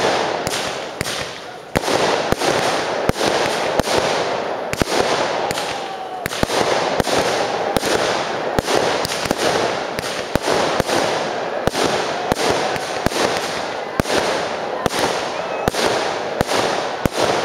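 Fireworks display: a rapid, steady run of shell bursts and bangs, about two or three a second, over continuous crackle, with faint whistling glides now and then.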